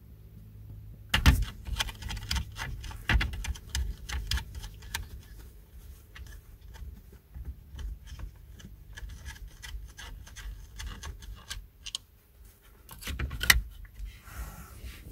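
A hard plastic headrest-mount bracket being handled and fitted onto the seat's headrest posts: a run of irregular clicks, taps and rattles, with louder knocks about a second in and near the end.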